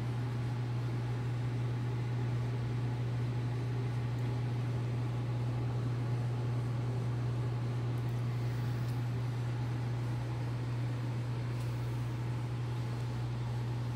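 A steady low hum over a constant faint hiss, unchanging throughout.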